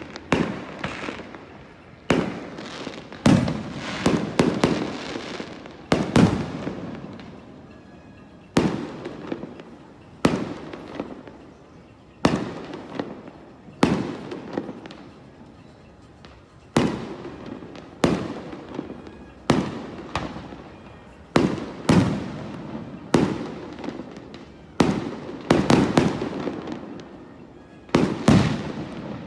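Fireworks display: aerial shells bursting one after another, a sharp bang every second or two, each trailing off in an echoing rumble and crackle.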